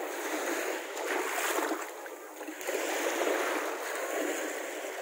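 Small waves of the Baltic Sea washing onto a sandy shore, a steady hiss of surf that swells twice, about a second in and again about three seconds in.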